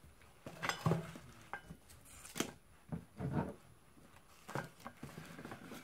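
Handling noises: items being picked up, moved and set down, with about half a dozen scattered knocks and rustles.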